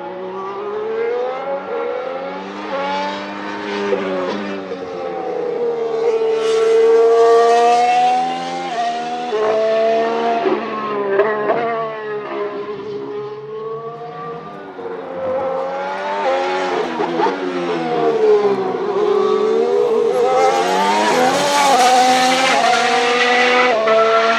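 Renault E-Tech 19 turbocharged V6 hybrid power unit of a McLaren MCL34 Formula 1 car, revving up and down as the car brakes, shifts gears and accelerates through corners. Its pitch falls and rises several times, with sudden steps at the gear changes.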